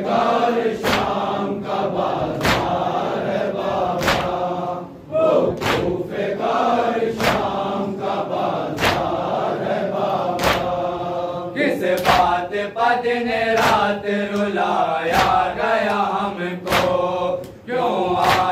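A group of men chanting an Urdu nauha (Muharram lament) in chorus, with matam: hands slapping chests together in a steady beat about every 0.8 seconds.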